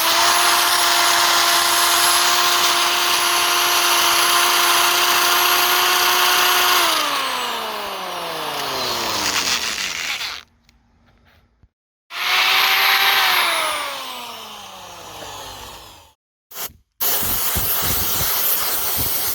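Electric drill running at a steady high speed while drilling a dowel pin hole through metal, then released so the motor whine falls as it winds down. About twelve seconds in it runs again briefly and winds down, and near the end comes a short loud stretch of drilling noise without the whine.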